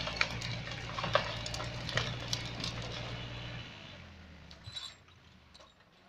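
An engine idling steadily, which cuts out about three and a half seconds in, with a few sharp cracks over it in the first half.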